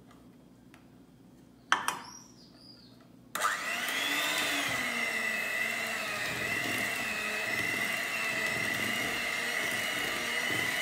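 A sharp knock, then a handheld electric mixer switches on a little past three seconds in. Its motor whines steadily and its beaters churn through thick batter with milk just added.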